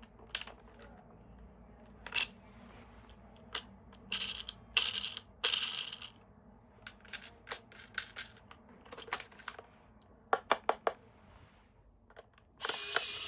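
Hands handling small hard plastic parts and packaging: scattered light clicks and taps with a few short rustles. Near the end a steady mechanical whir starts up.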